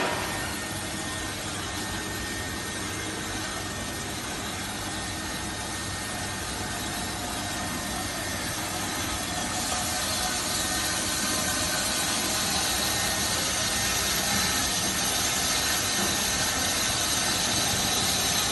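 Full automatic bandsaw running with a steady hum and hiss that grows louder and brighter about halfway through.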